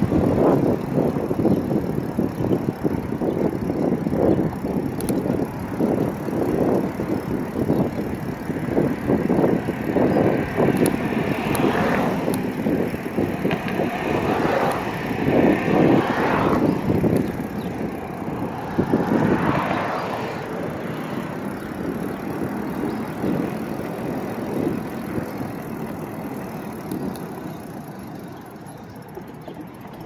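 Wind buffeting the microphone of a camera on a moving e-bike, a constant gusty rush with tyre rumble from the concrete sidewalk. There are a few louder swells around the middle, and the noise fades over the last stretch.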